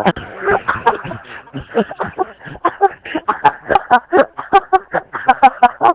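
People laughing in quick repeated bursts.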